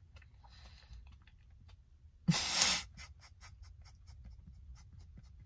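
A person eating a sandwich, with one loud, sharp breath out about two seconds in, then a string of small wet mouth clicks as the chewing goes on.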